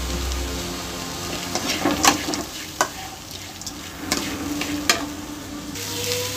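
Chopped onions, curry leaves and dried red chillies sizzling in hot oil in a kadai, stirred with a metal spatula that clicks and scrapes against the pan several times. This is the tempering stage, frying in oil.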